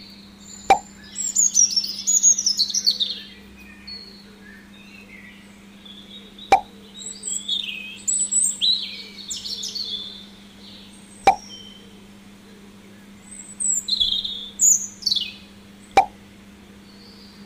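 Small birds chirping and twittering in short bursts. A short sharp plop sounds four times, about every five seconds, over a faint steady hum.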